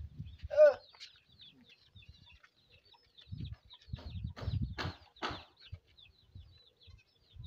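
Fowl clucking and calling, with one clear squawk about half a second in and faint high chirps throughout.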